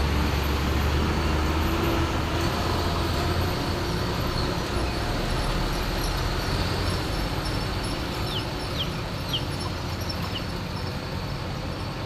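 Heavy diesel truck running past on the road, its low engine rumble strong for the first three seconds or so and then dropping away, leaving steady traffic noise. A few faint, short high chirps sound near the end.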